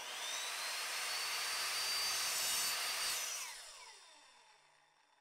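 Electric sliding miter saw cutting half-round wood moulding at a 45-degree angle. The motor runs at a steady high whine for about three seconds, then the trigger is released and the blade spins down, the whine falling away and fading.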